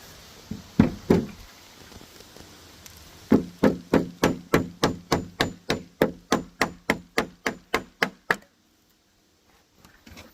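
Hammer blows: a few separate strikes at first, then a steady run of about four blows a second for around five seconds.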